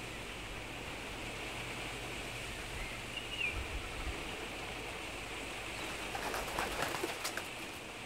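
Open-air tundra ambience: a steady hiss, with one short high bird chirp a little over three seconds in and a few brief sharp sounds near the end.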